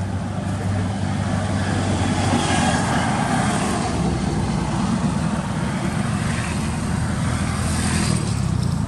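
A motor vehicle's engine running with a steady low hum, swelling louder about two to three seconds in as it passes by.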